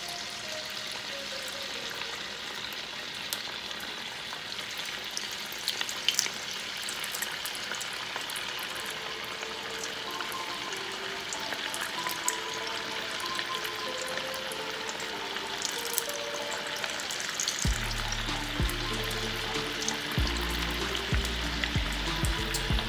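Tuna-filled masa panades frying in hot oil in a stainless steel skillet: a steady sizzle that grows slightly louder as more pastries go into the pan.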